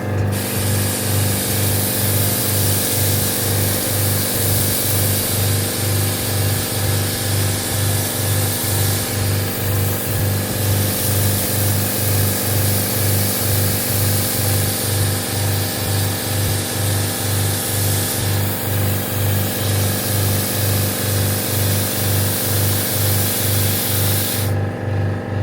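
Pressure-washer pump running with an even, pulsing hum while its water jet sprays with a steady hiss, as used for washing out an air conditioner. The spray cuts off near the end while the pump keeps running.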